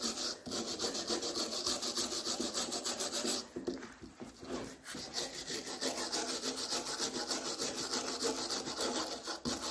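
Hand-held steel wire brush scrubbing back and forth over the wooden knob of a walking stick, in quick scratchy strokes about four a second with a brief slower patch a few seconds in. The brushing strips dust, grime and dirt off the wood before sanding.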